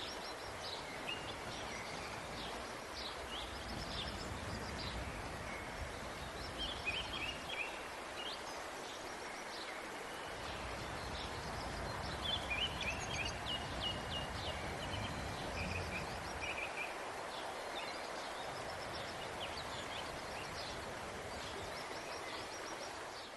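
Outdoor ambience: a steady background hiss with small songbirds chirping and twittering throughout.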